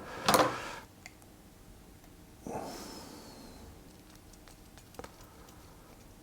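A person breathing out sharply about half a second in, then a softer breath about two and a half seconds in, with a few faint clicks of small parts being handled.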